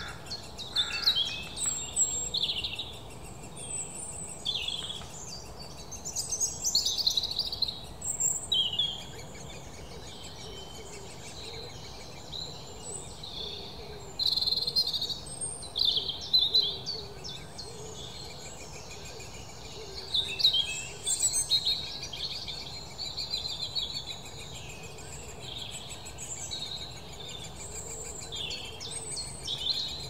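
Great spotted woodpecker nestlings calling from inside the nest hole, begging for food: bursts of rapid, high chirping that come and go every few seconds, with quieter gaps between.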